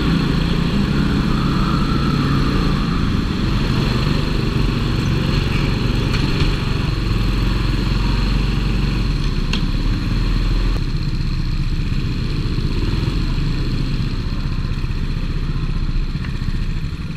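Go-kart engine running hard as it races round an indoor track, heard from a camera mounted on the kart. About two-thirds of the way through the engine note changes as the kart eases off and rolls into the pit lane.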